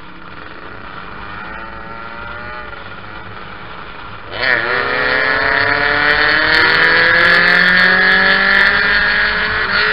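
Tuned moped engine revving under acceleration, its pitch climbing steadily. About four seconds in it suddenly gets much louder as the throttle is opened, and it holds a high note. The pitch dips briefly a few times as the rider backs off the revs.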